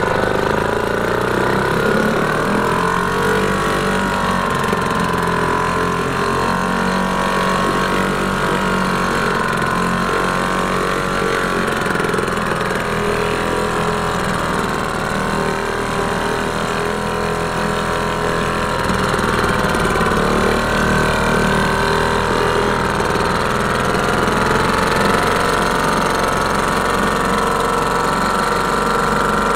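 British Seagull Model 100 single-cylinder two-stroke outboard running in a bin of water, its propeller churning the water. It runs steadily, the speed wavering a little and picking up slightly about two-thirds of the way in.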